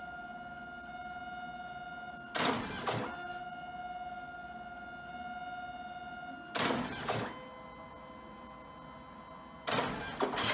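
DNP DS-RX1 dye-sublimation photo printer printing a queued print: a steady motor whine broken by three short, louder mechanical bursts about every four seconds. After the second burst the whine settles to a lower pitch.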